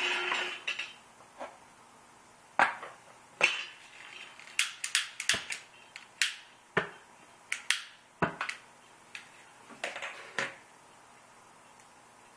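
Small homemade metal alcohol stoves clinking and knocking as they are set down and moved on a countertop, mixed with the sharp clicks of a long-reach lighter. The clicks come irregularly, about a dozen, and the first clink rings briefly.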